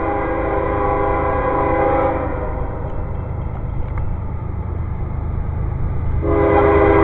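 Locomotive air horn sounding a chord of several steady notes: one blast of about two seconds, then a second blast starting near the end, over a steady low rumble. This is an approaching train sounding its horn for the grade crossing.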